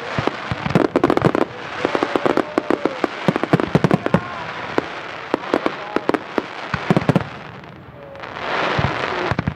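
Aerial firework shells bursting in a dense barrage of rapid sharp bangs and crackle. The bangs ease off about eight seconds in, then a swell of steady hiss follows.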